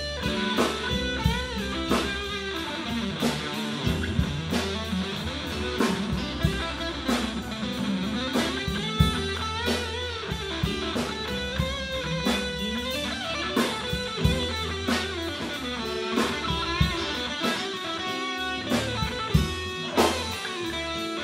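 Instrumental background music led by guitar over a steady drum beat.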